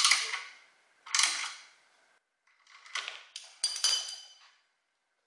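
Metal hand tools and hardware clanking and clinking together, about five sharp strikes with a brief metallic ring: one at the start, one about a second in, and a quick cluster around three to four seconds.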